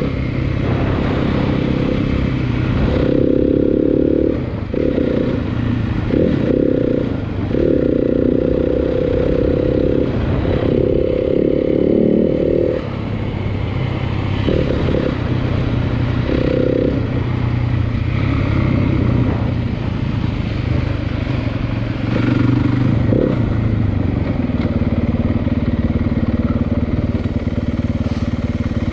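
Dirt bike engine running while being ridden, the throttle opening and closing repeatedly so the engine note surges and drops every second or two, then holding a steadier note for the last few seconds.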